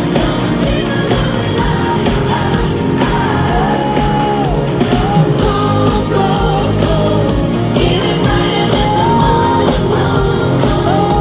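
Live pop-rock concert music: a woman sings lead over a loud full band, holding and sliding between notes.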